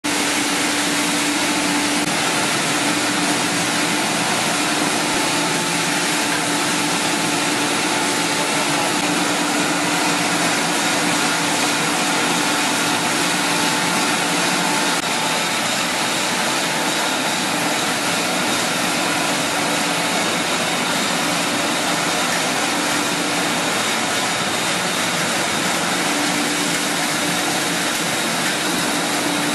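Polyethylene wax production line machinery running: a loud, steady mechanical hiss and hum with a few constant tones through it.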